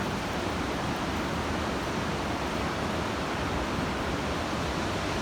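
Coquihalla River rushing steadily through the gorge, an even wash of water noise.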